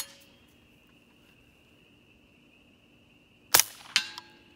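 Suppressed AK-pattern rifle firing 5.45x39 subsonic through an RMS2 HOPAII suppressor: a sharp report about 3.5 s in, then a second sharp crack half a second later with a brief ring. The tail of the previous shot falls at the very start. Insects keep up a steady high drone throughout.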